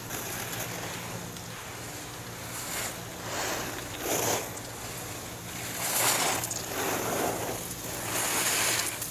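Skis carving turns on snow: a run of swelling scrapes as the edges bite and release, about six in a row, loudest around four and six seconds in and near the end.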